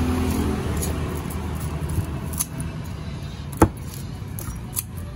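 Knife cutting into a tuna on a wooden chopping block, giving a few sharp clicks and knocks; the loudest comes about three and a half seconds in. Under them runs a steady low rumble.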